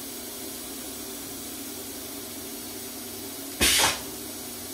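Steady hiss with a faint low hum underneath, broken once, about three and a half seconds in, by a short loud rush of noise.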